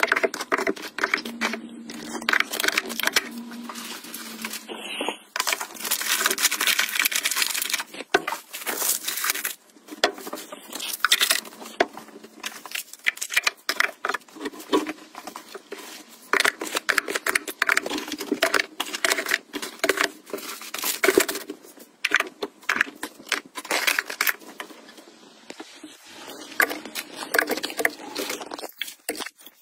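Plastic and foil packets rustling and crinkling as they are handled and stood in shelf cubbies, with many light taps and clicks against the shelves. The longest stretch of crinkling comes about six to ten seconds in.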